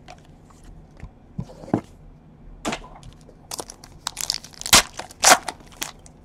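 Foil trading-card pack being torn open and its wrapper crinkled. After a few light clicks of cards being handled, the crackling builds, with the two loudest rips near the end.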